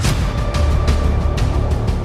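Dramatic background music with a deep bass and sharp percussive hits, cutting in abruptly from silence.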